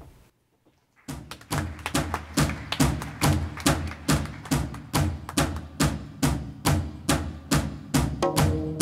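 Music for a dance performance starts about a second in. It is built on a steady drumbeat at about two to three beats a second, and a held string-like tone joins near the end.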